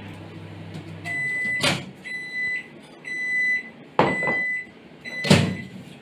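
Panasonic microwave oven humming as it runs, the hum stopping about a second in, followed by its end-of-cycle signal: about five high beeps roughly a second apart, the cooking time done. Three sharp knocks fall among the beeps, the last the loudest.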